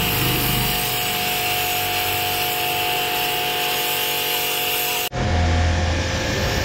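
A pressure washer running, its jet of water hissing steadily against a motorcycle, with a steady machine tone underneath. About five seconds in the sound changes abruptly to a duller, deeper rumble.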